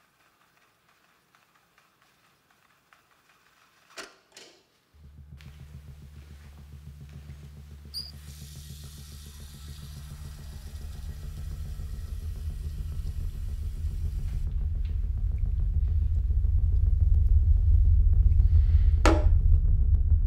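A low, pulsing drone fades in about five seconds in and swells steadily louder: a film-score rumble. Over it, a tap runs into a sink for several seconds in the middle, starting with a click.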